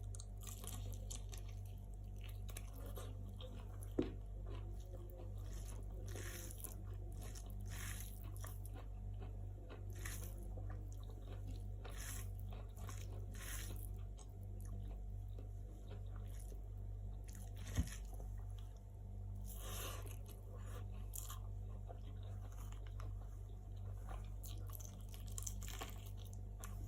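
Close-miked chewing and biting of chicken curry: repeated crisp crunches and mouth sounds, with two sharp clicks, about 4 and 18 seconds in, over a steady low hum.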